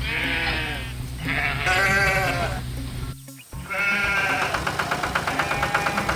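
Three long, wavering bleats, like a sheep or goat, over background music with a steady beat.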